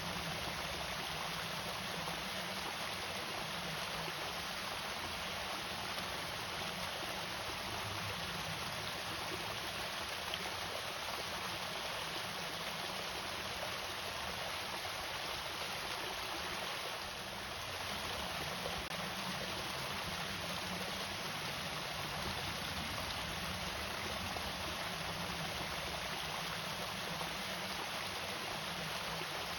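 Water from a small irrigation waterfall pouring steadily, a continuous rushing splash.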